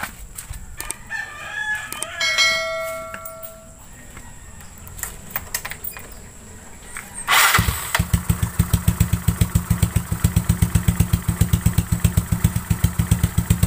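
A Yamaha Mio Sporty's single-cylinder four-stroke engine, fitted with an open tube-type exhaust pipe, starts about seven seconds in and settles into a steady, fast-pulsing idle. The pipe has a leak, which the owner says keeps the note from sounding crisp. A rooster crows earlier on.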